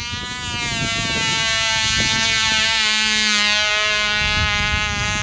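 Cox .049 two-stroke glow engine of a small RC biplane in flight: a steady high buzz whose pitch wavers slightly, a little louder in the middle.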